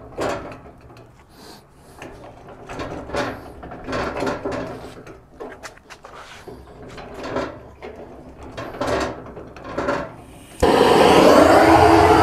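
Knocks and scrapes of metal as the kazan and its stove are handled. About ten and a half seconds in, a propane gas torch fed from a cylinder starts with a sudden loud, steady hiss carrying whistling tones as it is used to light the firewood in the stove's firebox.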